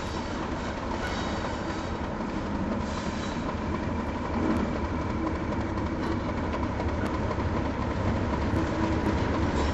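British Rail Class 37 diesel-electric locomotive, with its English Electric V12 engine, running slowly on the approach. Its low engine drone grows steadily louder.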